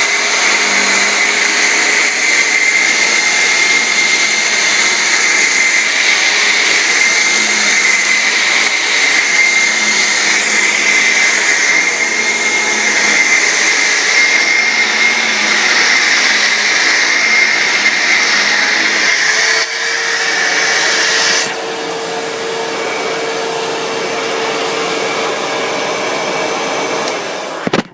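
Hoover WindTunnel self-propelled upright vacuum cleaner running at full power with a steady high whine. About 20 seconds in its sound changes to a lower, quieter hum. It shuts off abruptly near the end.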